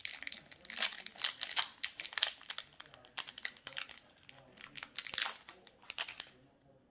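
Foil wrapper of a Magic: The Gathering Commander Legends collector booster pack crinkling and tearing as it is opened by hand. The irregular crackling stops about six seconds in.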